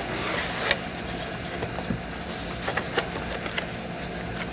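A cardboard box being opened and unpacked: a rushing scrape of cardboard in the first second, then scattered light rustles, taps and clicks of cardboard and paper being handled, over a steady low hum.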